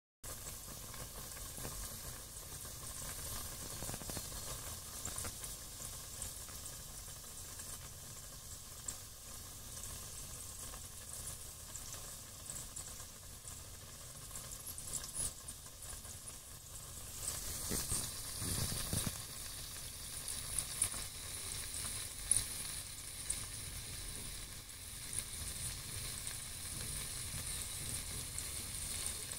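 Battered cookie deep-frying in hot oil: a steady sizzle with scattered small crackles and pops, growing a little louder and brighter about two-thirds of the way through.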